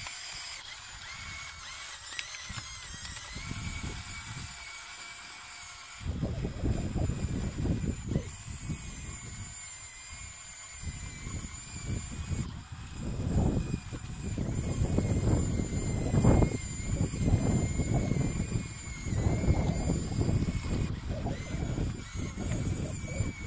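Radio-controlled Cat D5 bulldozer model's electric drive motors and gearboxes whining, the pitch wavering as it drives over the dirt. A low rumble comes and goes in surges from about six seconds in.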